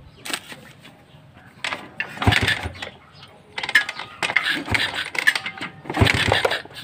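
Kick-starter of a small single-cylinder motorcycle engine being kicked several times, turning the engine over without it firing: the ignition still gives no spark, even with a replacement CDI fitted.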